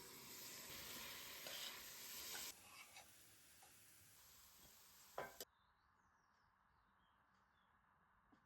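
Food sizzling in hot oil in a cooking pot, loudest for the first two and a half seconds, then softer, with a sharp knock about five seconds in just before the sizzle cuts off suddenly.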